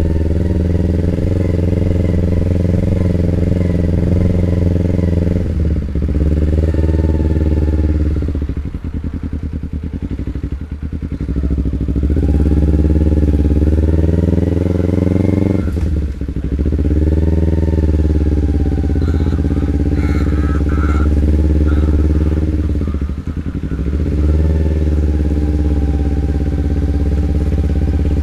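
Loud exhaust of a carbureted 2011 Kawasaki Ninja 250R parallel-twin, running continuously. Its note dips and climbs back three times, and it drops to a quieter, crackly stretch about a third of the way in.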